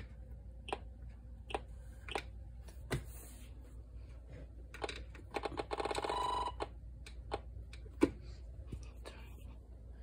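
Buttons being pressed on NOAA weather alert radios: several separate sharp clicks spread out, and about five and a half seconds in, a short buzzy electronic tone lasting about a second.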